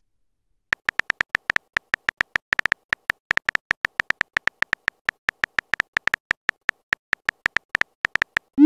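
Simulated phone-keyboard typing clicks from a texting-story app, a quick even run of about seven clicks a second as a message is typed. A short rising tone comes right at the end.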